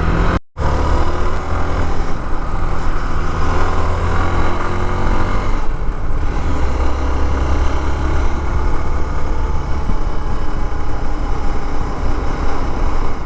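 Hero Xpulse single-cylinder motorcycle running on the road at riding speed, with wind rushing over the microphone. The sound drops out briefly about half a second in.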